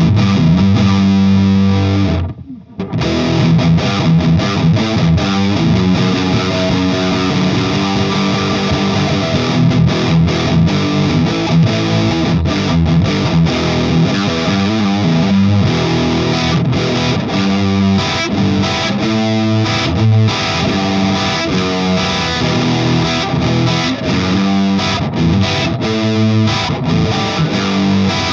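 Electric guitar played on the neck pickup through a Frank the Anvil FX Kitsune fuzz pedal, a hand-built modified Big Muff, giving a thick fuzz-distorted tone. The playing stops briefly about two seconds in, then carries on continuously.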